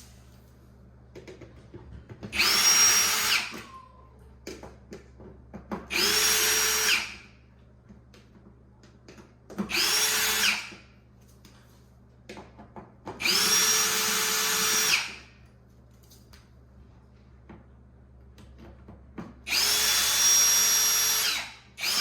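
Power drill-driver with a Torx bit backing screws out of a dishwasher door panel: five short runs of the motor, each about one to two seconds long, spinning up and winding down, with small clicks of handling between them. Another run starts right at the end.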